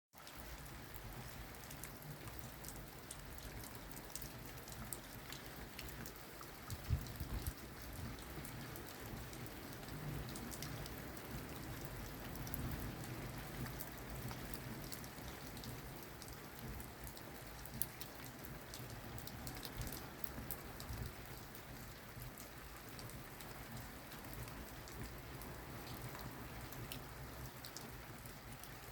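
Steady rainfall with many individual drops pattering on a surface, and a few louder drop impacts about seven seconds in and again a little before twenty seconds.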